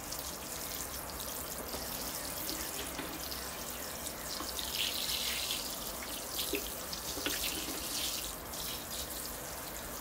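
Water showering from a watering can's rose onto freshly laid moss in a bonsai pot and splashing into the standing water in the tray beneath, rinsing mud out of the moss. A steady hiss of falling water, a little stronger around the middle, with a few drips.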